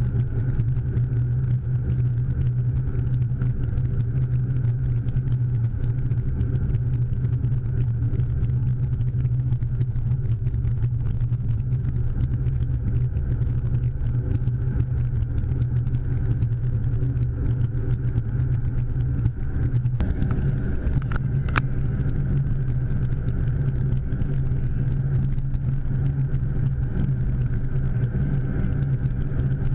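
Car being driven, heard from inside the cabin: a steady low drone of engine and road noise, with a couple of faint clicks about twenty seconds in.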